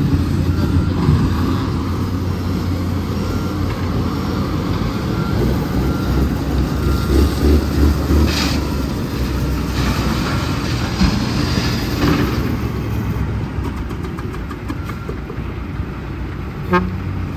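Heavy diesel truck engine running with a steady low drone and rumble. Its loudness swells a few times in the middle, and there is a short sharp sound near the end.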